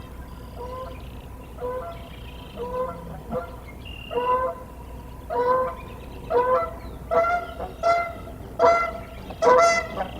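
Geese honking in a repeated series, the honks getting louder and coming faster through the second half.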